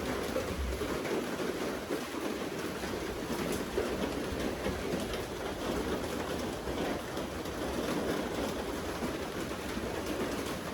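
Steady rain falling, a continuous patter of raindrops with a low rumble underneath.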